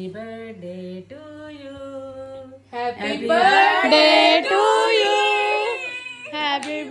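Women's voices singing long held notes, quiet at first, then louder with several voices singing together from about three seconds in.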